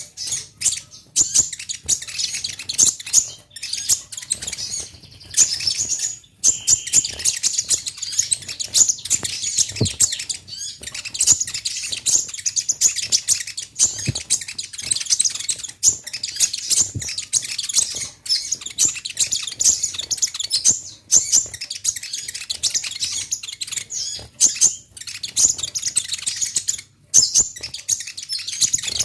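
Kolibri ninja (purple-throated sunbird) singing vigorously in a rapid, almost unbroken run of high, thin chirps and twitters, with only a few short pauses. This is the lively 'gacor' song used to draw other konin into answering.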